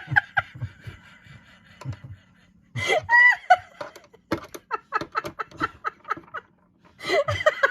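A person laughing: a few voiced sounds, then a run of short laughs.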